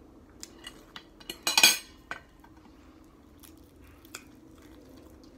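A metal fork clicking and clattering against a ceramic plate: a few light clicks, one loud short clatter about one and a half seconds in, then a few fainter clicks.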